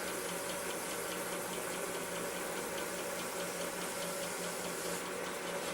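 Wood lathe running slowly with an abrasive cut-and-shine compound being worked against the spinning sycamore pen blank: a steady hum and hiss with faint regular ticks about five times a second.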